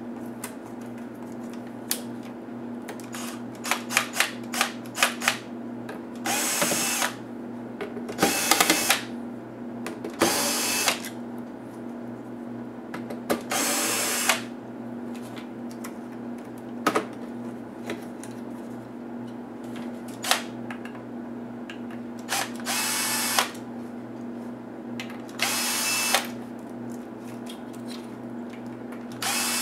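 Red cordless drill-driver whirring in short bursts of about a second each, around seven times, driving laptop screws, with sharp clicks of hands handling the laptop's plastic parts between the bursts. A steady low hum runs underneath.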